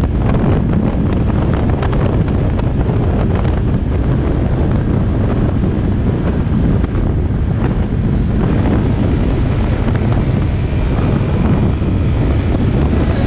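Heavy, steady wind noise on the microphone of a Honda RS150R motorcycle being ridden at speed.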